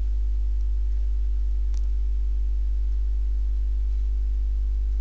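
Steady low electrical hum with a row of higher even overtones, typical of mains hum picked up in a headset microphone's recording chain, with one faint brief click about two seconds in.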